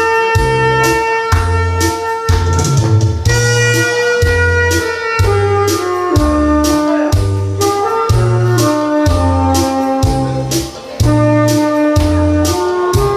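Saxophone playing a melody of held notes over accompaniment with a steady drum beat and bass.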